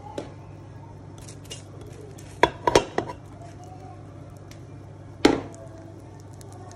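Kitchen handling sounds: sharp clicks and knocks of a pot and utensils, a quick cluster about two and a half seconds in and one more a little after five seconds, over a steady low hum.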